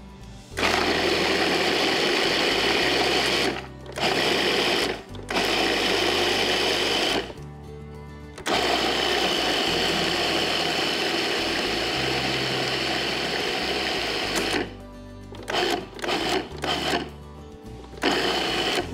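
Food processor grinding walnuts, rolled oats and shredded coconut into a coarse meal: the motor runs in several bursts of a few seconds each with short stops between, then in a quick series of short pulses near the end.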